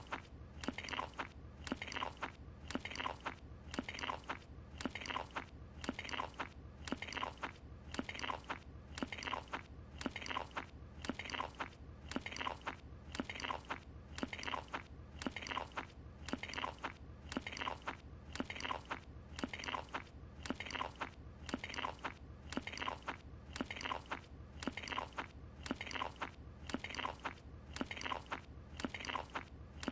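A cartoon character munching a croissant with open-mouthed chewing. One short clip of chews is looped, so the same chewing repeats over and over at an even pace.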